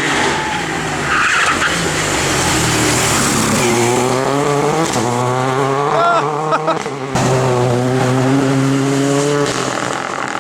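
Renault Clio R3T rally car's turbocharged engine revving hard, its pitch climbing and dropping back as it goes through the gears, with a brief cut about seven seconds in. Tyres squeal about a second in.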